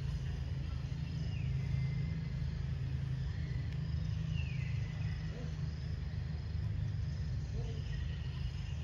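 Outdoor ambience: a steady low rumble with insects chirring faintly above it, and twice a short falling whistle.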